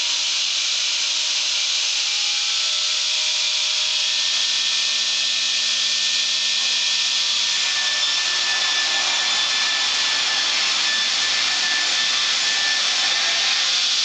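Circular sawmill blade cutting through a large log, a steady high hiss of sawing, with a faint whine joining in about halfway through.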